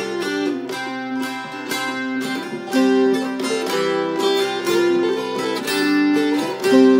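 Background music: dulcimers plucking a lively melody over steady drone notes.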